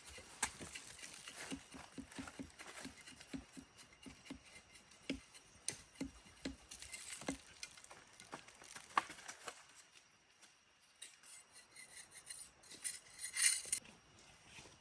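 Irregular light taps, clicks and rustling, busy for the first ten seconds or so, then a brief clinking burst near the end.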